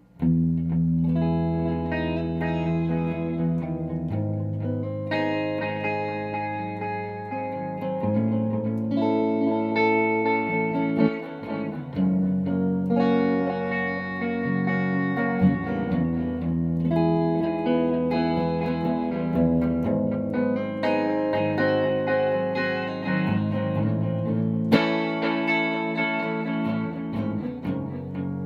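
Electric guitar played through a restored Echoplex EP-2 tube tape delay unit, sustained chords changing about every four seconds as the unit is tried out after restoration.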